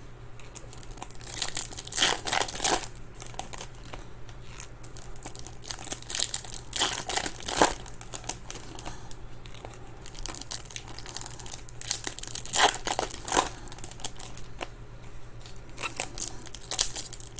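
2021 Topps Chrome baseball hobby packs being torn open and handled: the foil wrappers crinkle and tear in several short bursts, with quieter handling in between.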